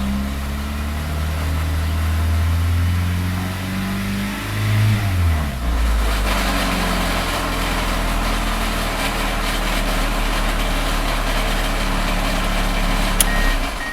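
Car engine held above idle, revving up to a peak about five seconds in and then dropping back to a steady idle, with the knocking/grinding noise that shows between 1,000 and 3,000 rpm and fades above about 2,000 rpm. Near the end a click, then an electronic beeping chime starts.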